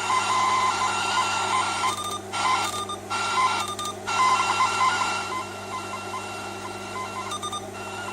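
A President Harry CB radio's speaker giving out AM receive noise: steady hiss with faint whistling tones, dipping briefly several times. This is the sign that the receiver is hearing again now that its failed crystal filter has been replaced.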